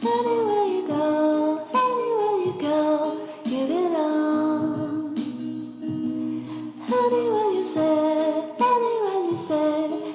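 Background music: a song with a woman's sung melody in gliding phrases over instrumental accompaniment.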